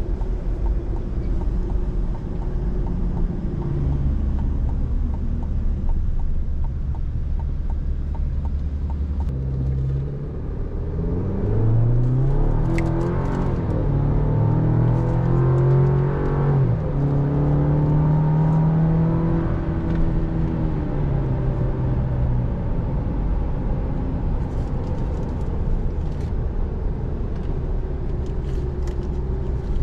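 Engine of a 2023 Chevrolet Colorado ZR2 (2.7-litre turbocharged four-cylinder) heard from inside the cab over a steady road and tyre rumble. About a third of the way in, the engine note rises under acceleration, steps down at an upshift, holds, then fades back to the road rumble.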